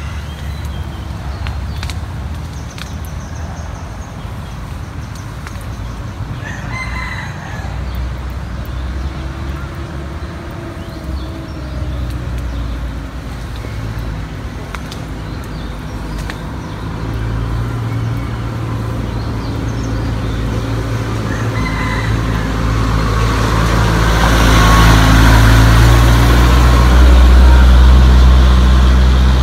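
A rooster crowing twice, with the engine of a motor vehicle, likely a truck, running throughout. The engine grows louder in the second half and is the loudest sound near the end.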